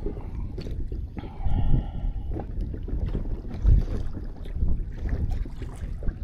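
Wind buffeting the microphone over water lapping and knocking against the hull of a small fishing boat rocking on the waves, with a brief pitched hum between one and two and a half seconds in.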